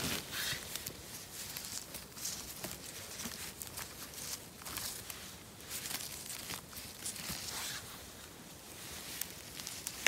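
Gloved hand rustling through moss, twigs and pine needles while picking mushrooms, with irregular scratchy crackles and small snaps throughout.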